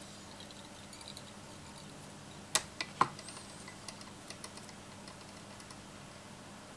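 A few small, sharp clicks and taps from handling tools and materials at a fly-tying vise: three close together midway, then lighter ticks, over a faint steady hum.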